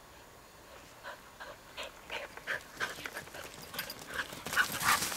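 A dog panting hard as it runs up close, the quick breaths getting louder as it nears and loudest near the end.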